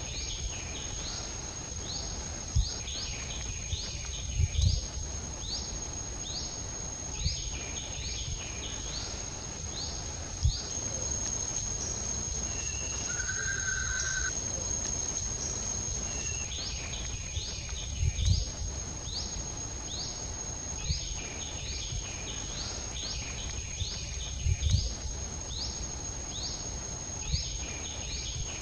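Outdoor ambience of insects and birds: a steady high-pitched insect whine, with runs of quick falling chirps in groups and one short whistled call about halfway. A few dull low thumps come and go.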